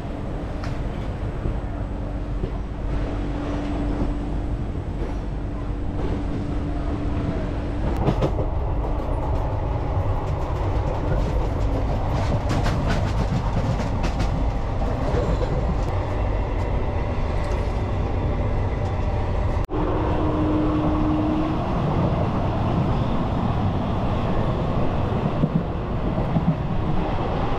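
Moving passenger train: the steady rumble and rattle of a rolling coach, with a light clickety-clack of the wheels. The sound changes abruptly twice, about 8 s in and about 20 s in.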